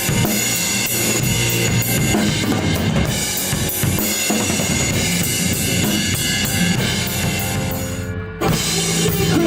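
Rock band playing an instrumental passage led by the drum kit, with bass drum, snare and cymbals plainly heard. There is a brief break about eight seconds in, then the band comes back in.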